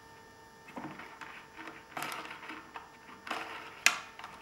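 Small clicks and scrapes of parts being handled and fitted onto a small Tesla turbine's air injector lever, in several short spells, with one sharp click near the end.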